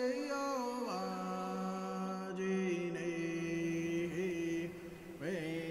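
Soundtrack music: a wordless chanting voice holding long notes, sliding down to a lower pitch about a second in.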